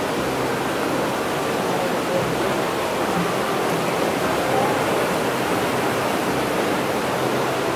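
Steady rushing of a waterfall in a rock gorge.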